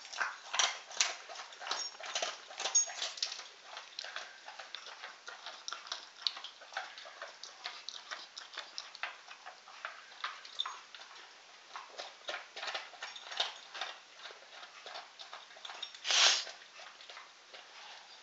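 Golden retriever chewing a hard dog bone: a steady run of irregular crunches and clicks as her teeth break it into crumbs, with one louder, brief noisy sound about sixteen seconds in.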